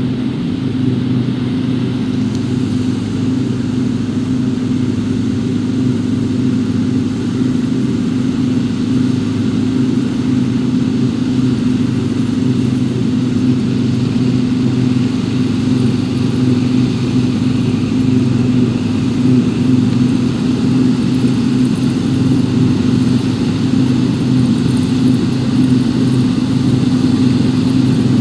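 New Holland TX68 combine harvester running steadily: an even engine drone that grows slightly louder toward the end.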